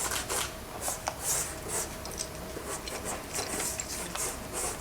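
Dry pastel sticks scratching in quick strokes across pastel-primed paper with a fine-grained ground, about two or three strokes a second.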